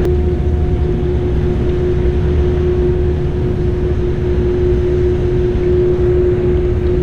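Steady loud roar of water rushing through a dam spillway, deep and rumbling, with a steady hum running through it.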